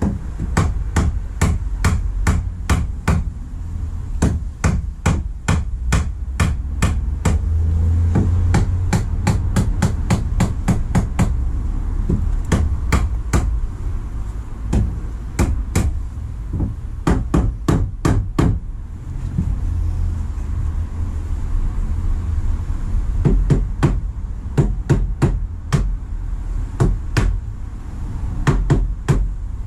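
Claw hammer tapping on the wooden battens of a camper-van bed frame, in quick runs of strikes with a short pause about two-thirds of the way through. A low steady rumble lies underneath.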